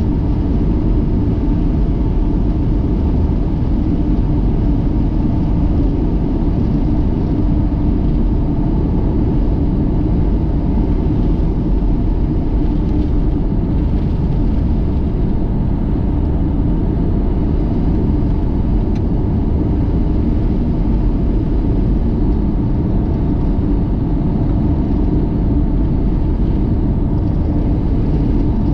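A car driving along: a steady rumble of engine and road noise.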